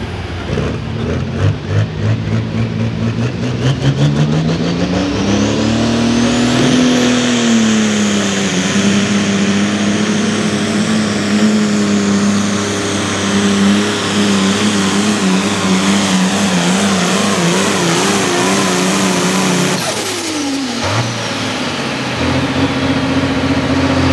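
Light pro stock pulling tractor's turbocharged diesel engine, about 466 cubic inches, winding up over the first several seconds. It then holds at full throttle under the load of a 40,000 lb sled, its pitch wavering slightly, with a high turbo whistle above it. About 20 seconds in, the throttle is cut and the engine drops back to a low idle.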